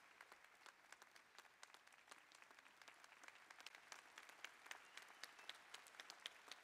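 Faint, scattered applause from an audience: many separate hand claps at an uneven pace.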